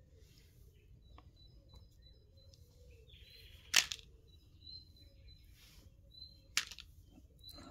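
Small birds chirping in short, repeated high notes over faint outdoor background noise, broken by two sharp clicks, the first and loudest nearly four seconds in, the second about six and a half seconds in.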